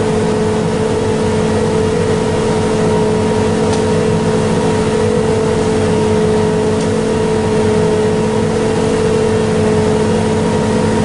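Swabbing unit's machinery running steadily: a constant engine drone with a steady whine held at one pitch over it.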